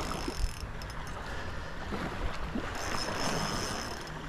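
Wind buffeting the camera microphone over shallow surf water sloshing and lapping, with a faint high steady tone coming in about three seconds in.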